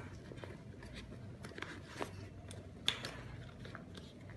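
Handling noise from a plastic water bladder and vest fabric being worked by hand: soft rustling with scattered small clicks and taps, and a sharper click about three seconds in.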